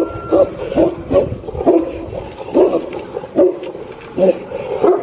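A dog barking over and over, short low barks about once a second.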